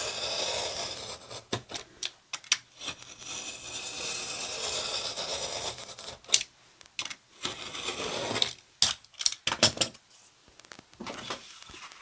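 Craft knife drawn along a steel ruler, slicing through a sheet of card in two long scraping strokes. In the second half, a run of sharp clicks and taps as the ruler and card are handled.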